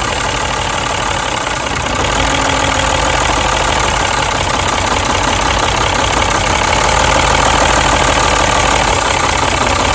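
Mini's petrol engine idling steadily under the open bonnet during an ignition-coil misfire check, growing slightly louder about two seconds in.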